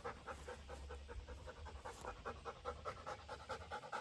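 A dog panting quickly and evenly, about five breaths a second.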